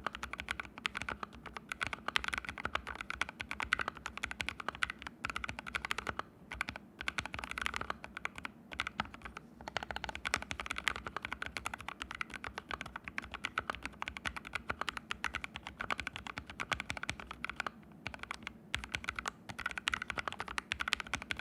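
Continuous fast typing on an ABKO AR61 mechanical keyboard fitted with fully lubed Haimu Sea Salt switches, the board set straight on the floor with no desk pad: a dense run of key clacks with a few brief pauses.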